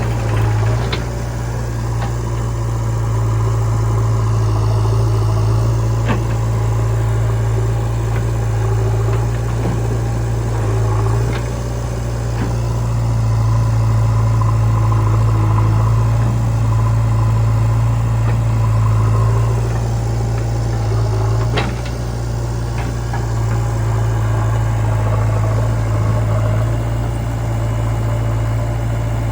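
Diesel engine of a JCB 3DX backhoe loader running steadily with a low hum that swells and eases a little, with a few sharp knocks over it.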